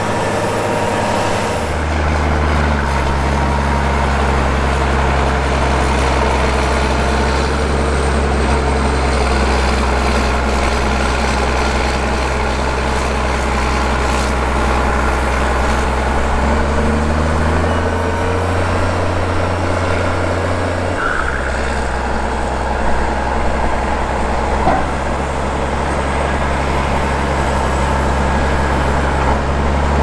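Heavy diesel tractor engines working under load as Case IH tractors push and pack corn silage on the pile. The engine note changes a few times, rising briefly around the middle and dropping back a few seconds later, as the machines work.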